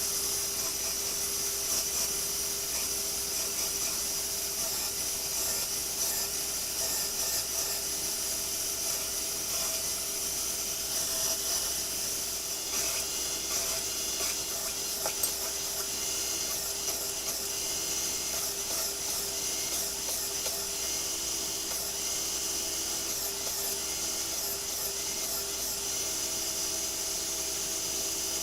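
Electric power sander running steadily on wooden planks, a constant motor hum under the hiss of abrasive on wood, smoothing off table-saw blade marks.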